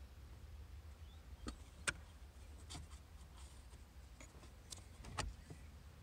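A handful of sharp plastic clicks and knocks from a car stereo head unit's tilting touchscreen being handled, the loudest about two seconds in, over a low steady hum.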